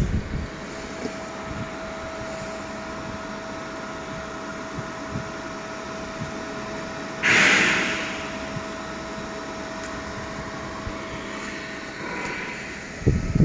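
TIG welding arc on stainless sanitary pipe, a steady hiss with a faint steady tone. About seven seconds in there is a brief, louder hiss that fades within a second.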